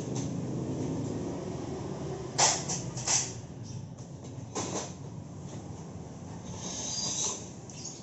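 Galvanised steel shelf parts knocking together during assembly: sharp knocks about two and a half and three seconds in and again near four and a half seconds, then a scraping rustle near the end, over a low steady rumble.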